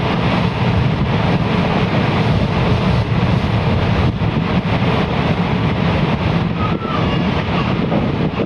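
Wind buffeting the microphone over the steady wash of sea waves breaking around the bridge piers.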